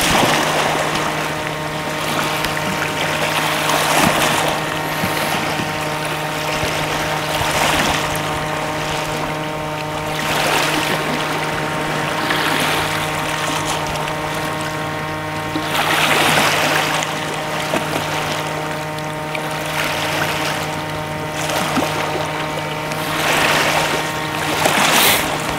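Waves washing against a rocky shore, surging every few seconds over a steady, even mechanical hum.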